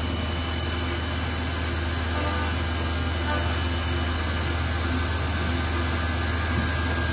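CNC milling machine cutting a billet aluminium intake-runner block with a 12 mm, 2 mm-radius end mill under flood coolant: a steady cut with a high whine over a low machine hum and coolant spray hiss. The cut sounds good and is running smoothly, without the vibration of the earlier long-reach tool.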